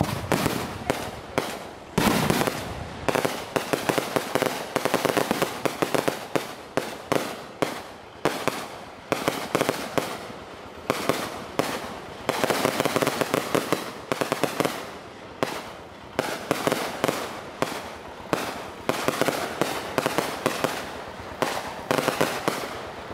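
Long strings of firecrackers hung beneath a Ponorogo paper hot-air balloon going off, a rapid continuous crackle of bangs in dense runs that swell and ease every few seconds.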